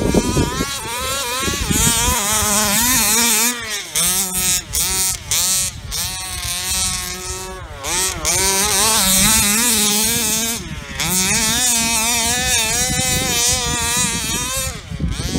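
HPI Baja 5B 1/5-scale RC buggy's small petrol two-stroke engine, revved hard and constantly up and down as it drives on loose sand. The throttle is briefly let off twice, about four and eleven seconds in.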